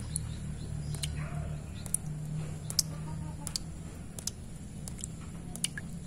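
Water drops falling one by one into a shallow, stony puddle, each landing with a short, sharp plink, about one a second at uneven intervals. A steady low hum runs underneath.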